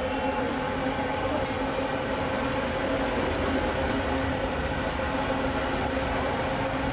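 A steady droning hum with a few held tones, over which a metal spatula and skewer lightly tap and scrape on a large flat iron griddle while a flatbread is folded.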